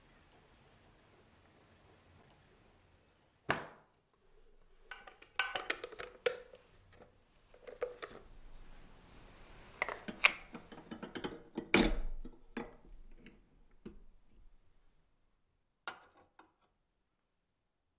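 A short high beep, then the clicks, knocks and crinkling of a metal can being opened and its paper seal peeled off by hand. Near the end, a light clink as a small glass espresso pitcher is set on the espresso machine's metal drip tray.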